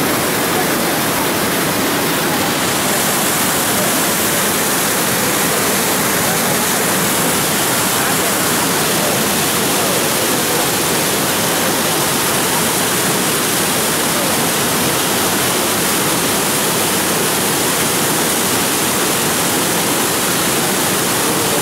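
Floodwater rushing through an open reservoir sluice gate and crashing into churning white water below: a loud, steady rush of water released from a lake in flood.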